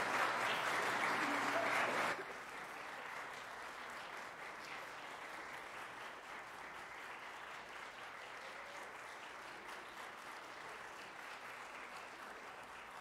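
Audience applauding, loud for about two seconds, then dropping suddenly to quieter clapping that slowly fades.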